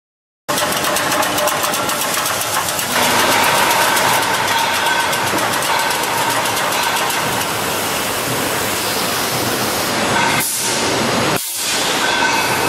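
Concrete roof tile production line machinery running, starting abruptly about half a second in. It is a loud, steady mechanical hiss with fast dense clatter and a constant whine, dipping briefly twice near the end.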